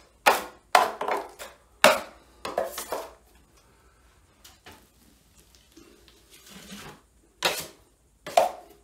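Steel drywall taping knife scraping joint compound across a ceiling tape joint: a quick run of short scraping strokes in the first three seconds, softer scraping in the middle, then two more strokes near the end.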